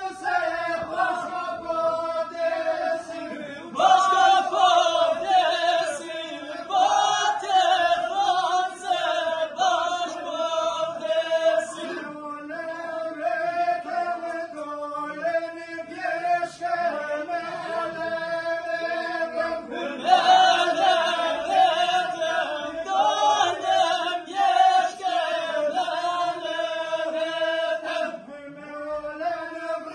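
Group folk singing, several voices together in a chant-like style over a held lower tone, with louder passages starting about four and twenty seconds in.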